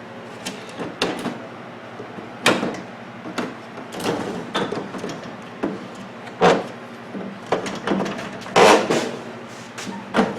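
A microwave's fan grill being popped loose and worked off by hand: irregular clicks and knocks, with a longer scraping rattle near the end.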